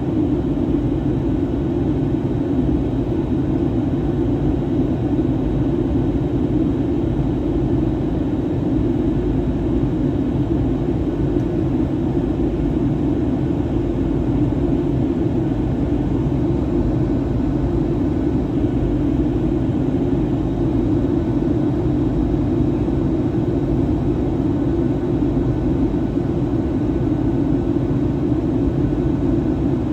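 Steady cabin noise inside a Boeing 737-800 in flight: an even roar from its CFM56-7B engines and the airflow, with no change in pitch or level.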